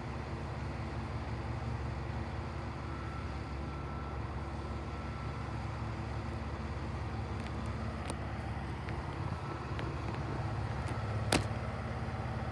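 Utility crane truck's engine idling steadily, with one sharp click near the end.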